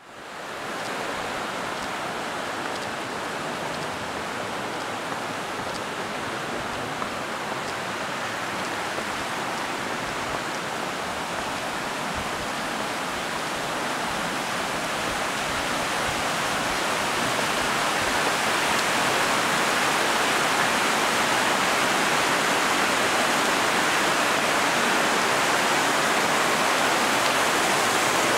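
Rushing mountain creek water: a steady roar that fades in at the start and grows slowly louder.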